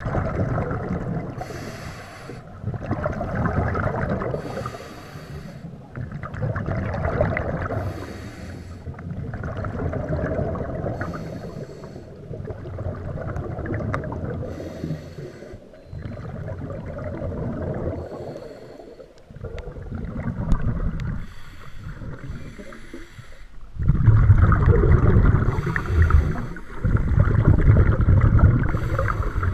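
Scuba diver breathing underwater through a regulator: slow cycles of inhaled hiss and exhaled bubbles, about one breath every three seconds, louder near the end.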